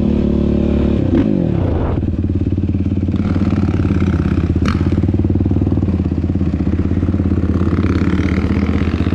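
Sport ATV engine heard up close from the rider's seat: the revs drop about a second in, then it keeps running at low, steady revs with a quick even pulse. Two sharp clacks cut through, about one and four and a half seconds in.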